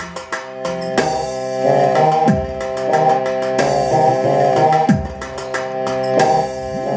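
Arranger keyboard music from a Korg Pa600/700: sustained chords over a drum rhythm, with a few falling pitch swoops recurring every couple of seconds.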